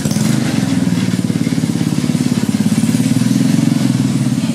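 A small motor vehicle engine running steadily close by, with a fast, even firing pulse.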